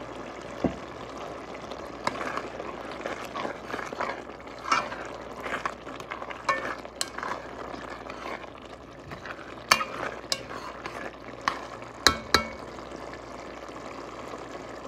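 A spoon stirring a thick tomato and pepper sauce frying in oil in a pot: a steady sizzle under scraping strokes, with several sharp clinks of the spoon against the pot in the second half.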